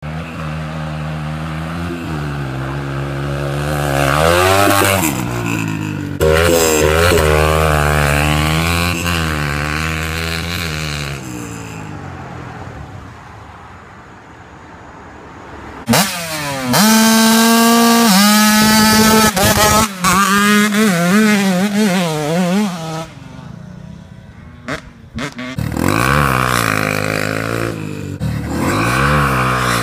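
Dirt bike engines revving and riding across several short clips, the engine pitch climbing and dropping with throttle and gear changes. The loudest stretch, about halfway through, is a hard rev that rises in pitch and then holds high.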